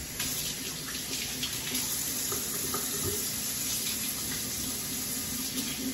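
Water from a kitchen faucet running steadily into the sink while hands are washed under it.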